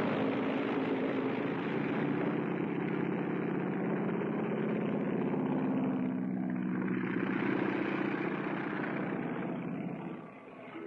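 Propeller airplane's piston engine running steadily, with a slight change in its tone around the middle; it drops away about ten seconds in.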